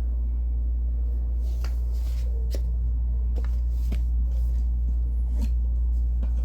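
Hand tools being handled and set down: a few scattered light clicks and knocks, over a steady low hum.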